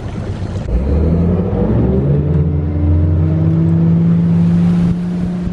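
Yamaha 250 V6 outboard motor on a bass boat throttling up from a standstill, its pitch climbing steadily for a few seconds as the boat gets under way. Near the end it eases back a little.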